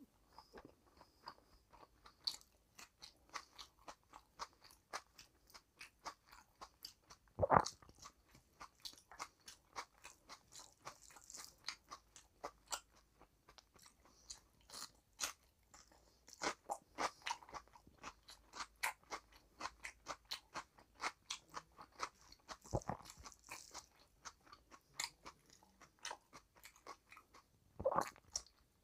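Close-miked chewing and crunching of a hand-eaten meal of rice and curry with raw cucumber slices: quick, moist crunching clicks, two or three a second. Three louder crunchy bites come about a quarter of the way in, about three quarters of the way in, and near the end.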